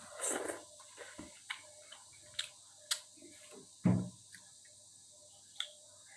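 Eating a bowl of luosifen rice noodles: a brief noisy rush just after the start, then scattered sharp clicks of utensils against the bowl and a dull knock about four seconds in.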